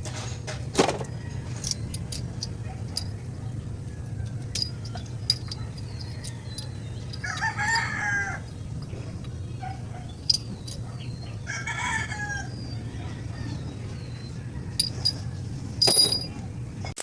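A rooster crowing twice, about seven and eleven seconds in. Scattered sharp clicks and knocks and a steady low hum run underneath.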